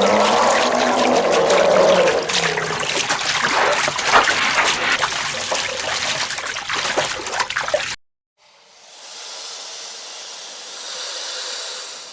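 Water trickling and splashing, then after an abrupt cut a quieter, steady hiss-like noise.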